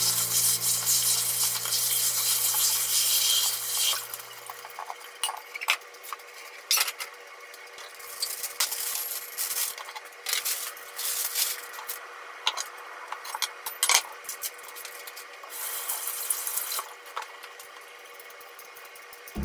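Close-up kitchen prep sounds: a steady rushing hiss for the first few seconds, then scattered light clicks, taps and plastic crinkling as a bag of asparagus is snipped open with kitchen scissors and the stalks are set on a wooden cutting board.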